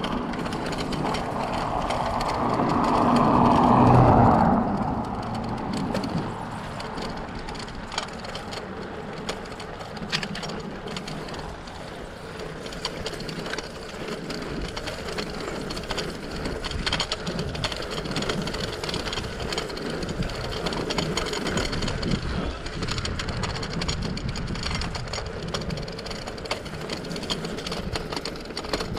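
Bicycle riding along a street: steady tyre and road noise with light ticking from the chain and freewheel. A couple of seconds in, a motor vehicle passes close by, swelling to a peak and fading away.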